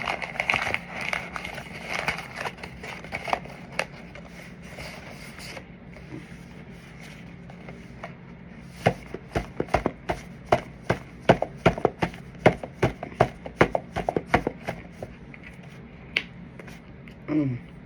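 Crunchy food being chewed close to the microphone: crackling at first, then a run of sharp crunches, a few a second, in the middle of the clip.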